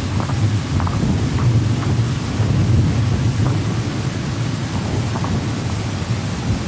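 Wind buffeting the camera's microphone: a loud, steady low rumble.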